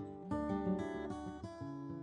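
Background music: acoustic guitar picked and strummed.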